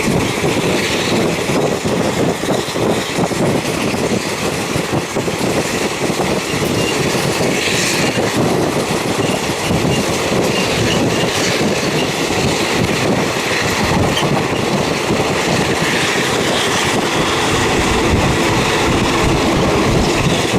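Train wheels rumbling and clacking over the rails, heard from inside a Thai third-class passenger carriage with natural ventilation: a steady, loud running noise.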